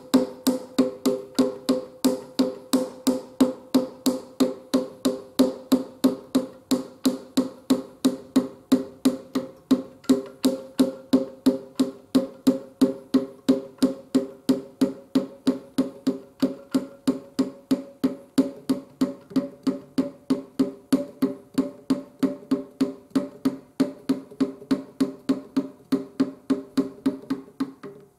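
Brush scrubbing back and forth inside a cast-iron engine cylinder, cleaning out rust from the flooding. Each stroke gives a hollow knock that rings in the cylinder, in an even rhythm of about three a second.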